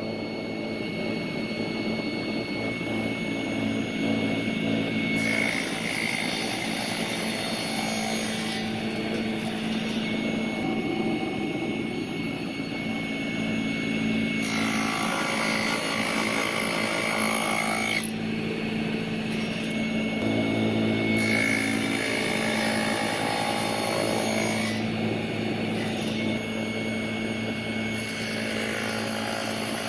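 Woodland Mills HM-130 MAX portable band sawmill running, its engine steady while the band blade cuts through a log. The sound shifts every few seconds across several short stretches.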